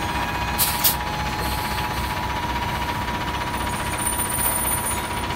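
Semi truck's diesel engine idling steadily under a thin high whine, with two short air hisses from the air system just under a second in.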